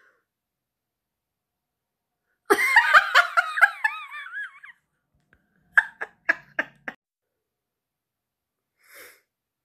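A woman bursts into high-pitched, wavering laughter for about two seconds, then gives a few short chuckles a second or so later.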